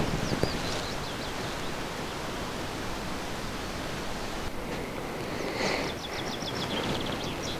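Steady wind rushing through the woods and over the microphone. A quick run of high, rapid chirps comes in near the end.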